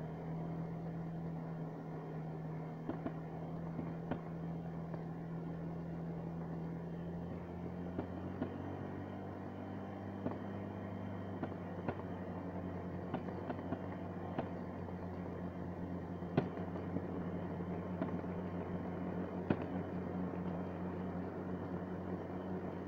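Vehicle engine running steadily while travelling, its pitch stepping slightly higher about seven seconds in, with scattered sharp clicks and knocks over the hum.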